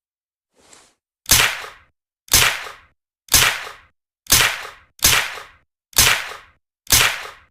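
Suppressed Uzi submachine gun sound effect: single shots about a second apart, each a sharp crack with a short fading tail. One faint shot comes first, then seven loud ones.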